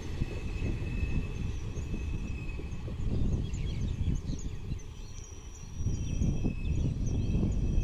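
Passenger train running away down the track, a low uneven rumble that eases briefly about five seconds in and then swells again. Birds chirp high above it from about three seconds in.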